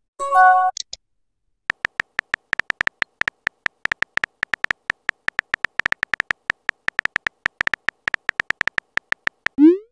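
Phone keyboard tapping sound effects: rapid, irregular short clicks as a text message is typed. A short message chime sounds in the first second, and a quick rising swoop comes near the end.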